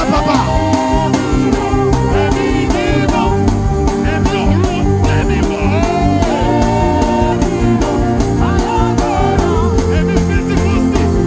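Live church band music with a steady beat, with a voice singing or chanting over it.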